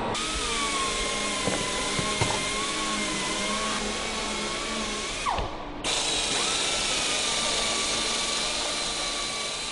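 A power tool's motor running with a steady high whine over a hiss. A little over five seconds in it winds down and cuts out for about half a second, then starts again and runs on.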